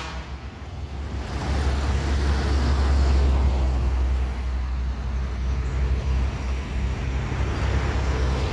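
Road traffic going by: a steady low rumble with a broad noise that swells about a second in as a vehicle passes.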